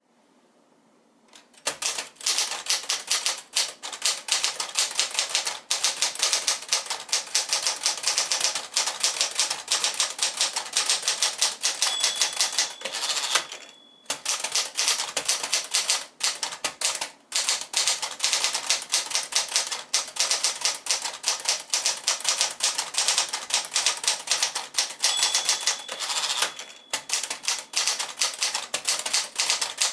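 1964 Sears Celebrity portable typewriter, with Smith-Corona 5AX Sterling works, typed on at a fast steady pace: rapid crisp key and typebar strikes. Twice a thin ringing tone is heard, each time followed by a short break in the typing.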